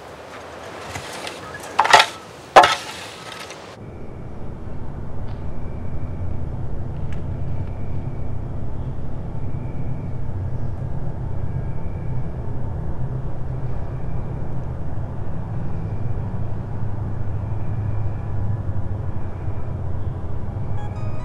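A shovel scraping and striking gravelly dirt, two sharp strikes about two seconds in. After a sudden cut, a steady low drone with a faint high tone recurring about once a second.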